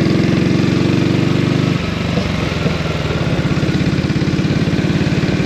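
1932 Norton 16H's 500cc side-valve single-cylinder engine running on the move with an even, rapid firing beat. A little under two seconds in, the note drops and gets quieter, and the engine keeps firing steadily.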